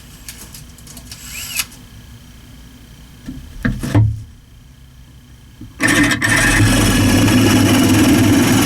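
Power drill starting up about two thirds of the way in and running steadily for about three seconds, pre-drilling a new wooden block. Before it, a few knocks and clunks of handling.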